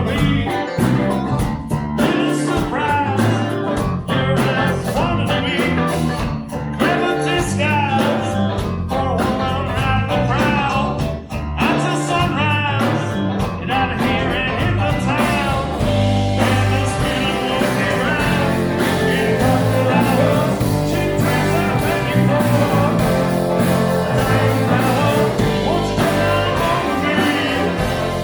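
Live band playing a rock song, with a lead singer over electric guitar, bass and a steady beat; the sound grows fuller from about halfway through.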